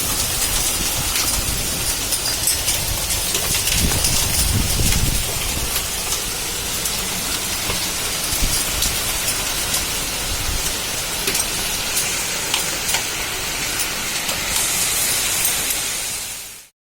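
Hailstorm: a dense hiss of hail and rain falling hard, peppered with many sharp clicks of hailstones striking surfaces. It cuts off suddenly near the end.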